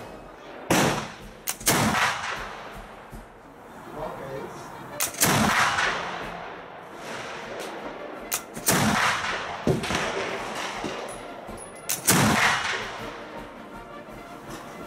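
Black-powder flintlock rifle shots: five loud shots a few seconds apart, each with a long rolling echo, and a few fainter sharp cracks between them.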